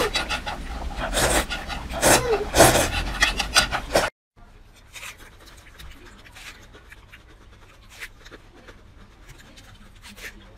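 Close-up loud slurping of noodles, in several long noisy pulls, for about four seconds. After a sudden cut, much quieter chewing with small wet mouth clicks.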